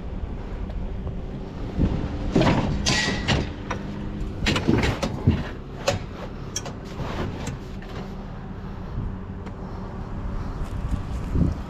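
A vehicle engine running steadily, with a string of knocks and rattles about two to seven seconds in and a few more near the end.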